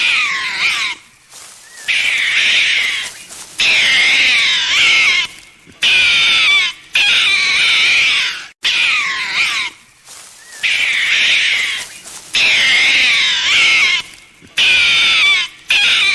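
Raccoon calls: a series of high, wavering squeals in bursts of about a second each, roughly one every two seconds, with short gaps between.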